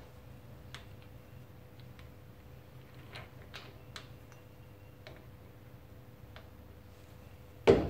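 Faint, scattered small metal clicks as a steel pin and drift are fitted against an air-suspension compressor's connecting rod on a vise. A loud knock comes right at the end.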